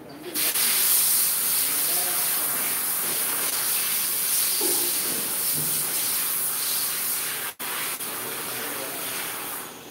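Compressed air hissing loudly and steadily, starting abruptly, breaking off for an instant about seven and a half seconds in, and stopping near the end.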